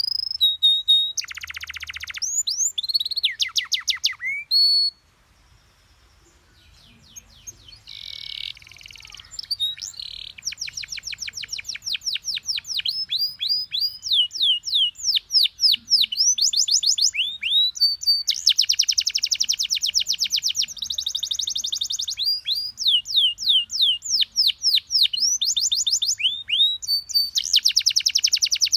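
Domestic canary song played as a tutor recording for young canaries to copy: fast trills of high down-sliding whistled notes alternating with buzzy rolls. The song pauses about five seconds in, then picks up again.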